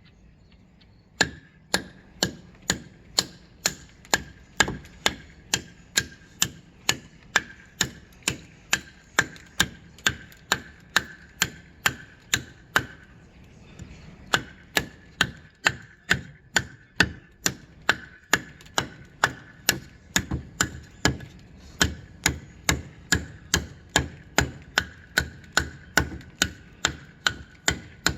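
A blacksmith's hammer striking steel on an anvil in a steady rhythm of about two blows a second, each blow leaving a ringing note, with a short break a little before halfway.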